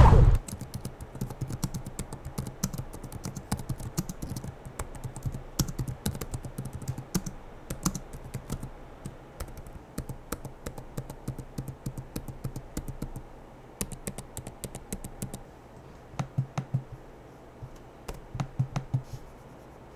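Typing on the Huawei MateBook X Pro 2020's chiclet laptop keyboard: a quick, uneven run of light key clicks that thins out into short pauses near the end.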